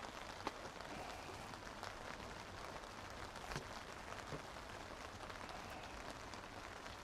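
Steady light rain falling, with scattered drops ticking sharply here and there.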